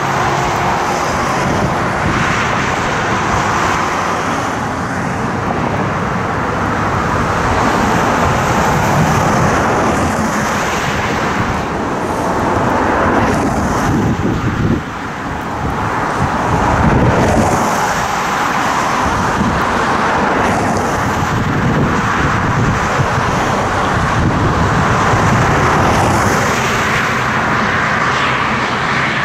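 Everett Railroad No. 11, a 1920 ALCO 2-6-0 Mogul steam locomotive, approaching under steam, giving a loud, steady working noise.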